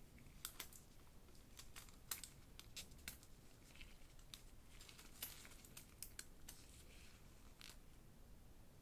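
Quiet, irregular light clicks and taps of a smartwatch and its packaging being handled during unboxing, some with a brief rustle.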